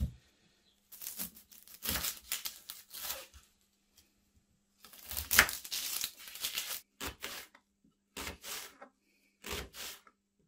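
Dry, papery onion skin being peeled and torn away with a kitchen knife on a plastic chopping board, in several short bursts with pauses between them, and a sharp knock about five seconds in.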